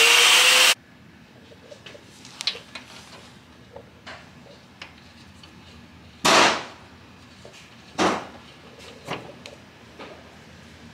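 A power tool runs with a loud hiss and a rising whine, then cuts off suddenly under a second in. After it come scattered clicks and knocks of metal parts being handled, with one short loud rush of noise about six seconds in.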